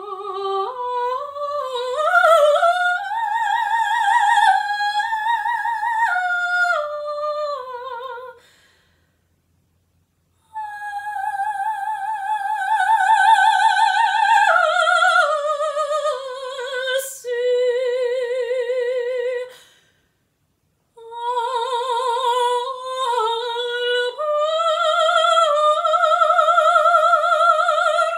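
A soprano sings an operatic aria with no accompaniment, in three long phrases with a wide vibrato and short silences between them. The first phrase climbs high and falls back. The second holds a high note, then steps down to a low held note.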